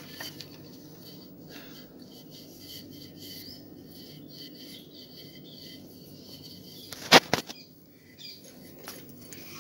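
Wooden rolling pin rolling out flour dough on a stone board: faint rolling and rubbing, with two sharp knocks close together about seven seconds in.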